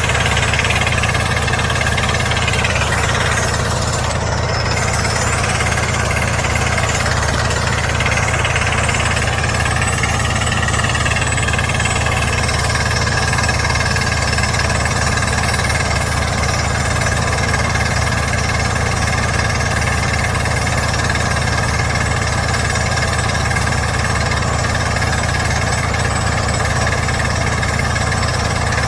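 KY120 rock drill rig running steadily, a loud, continuous, rapid hammering.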